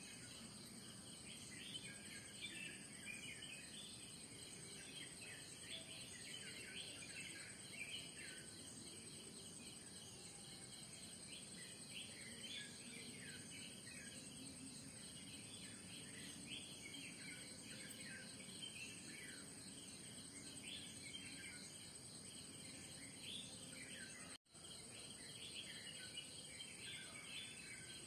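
Morning chorus of many small birds chirping in quick, overlapping calls, over a steady high-pitched trill of insects. The sound cuts out for an instant about three-quarters of the way through.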